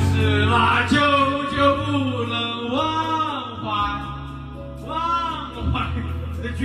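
A man singing karaoke into a microphone, holding long notes over music.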